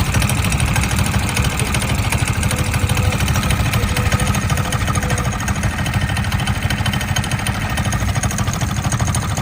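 Motorcycle engine idling with a steady, fast low beat.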